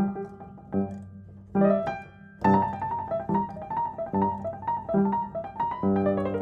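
Background music played on piano: a steady, rhythmic run of notes and chords.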